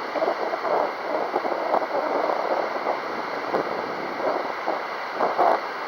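Gusty wind buffeting the microphone, an uneven rushing noise that swells and drops every second or so.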